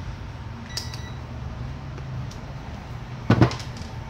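A steady low hum with a short ringing ping about a second in and a brief, louder clatter a little after three seconds as test gear is handled on the bench.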